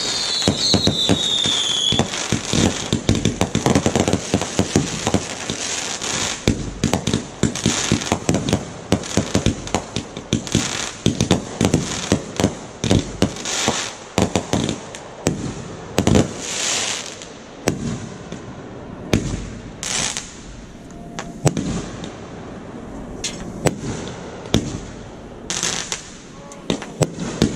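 Fireworks fired from the ground in a rapid barrage of bangs and crackling bursts, with a whistle falling in pitch in the first couple of seconds. After about sixteen seconds the bangs thin out and come in small clusters.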